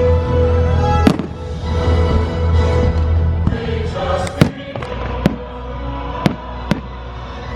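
Fireworks bursting over a loud show soundtrack: about six sharp bangs, the loudest about four and a half seconds in, with sustained music playing throughout.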